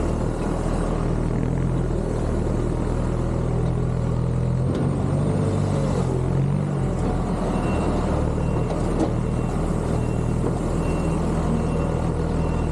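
Diesel engine of farm machinery running steadily, a constant low rumble.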